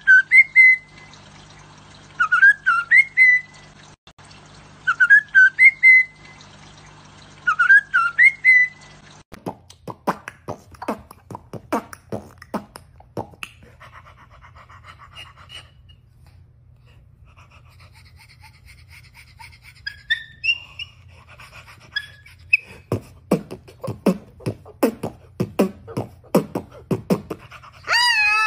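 A caged white-rumped shama sings the same short whistled phrase four times, about every three seconds, over a steady low hum. After a cut, a white cockatoo and a man trade rapid sharp clicks and pops with a few whistled notes, ending in a loud warbling, wavering call.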